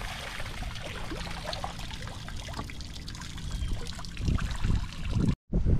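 Tidal floodwater trickling and flowing over a flooded boat ramp, with a low rumble underneath that grows a little near the end.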